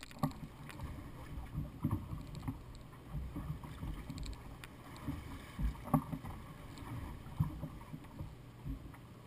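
Choppy seawater slapping against the hull of a drifting bass boat, with irregular low thuds and a few sharp knocks.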